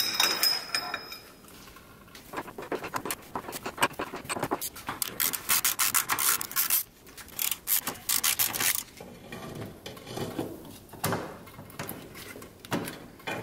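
Hand tools working loose a very tight fuel-line fitting on a Toyota Supra's stock fuel filter: irregular metal scraping and clicking, with a dense run of rapid clicks from about four to nine seconds in and fewer strokes after.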